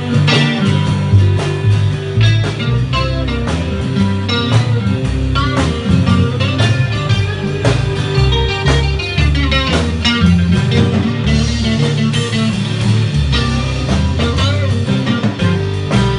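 A live band playing a guitar-led blues-rock number at a sound check: guitar lines over a steady bass line, with regular drum hits.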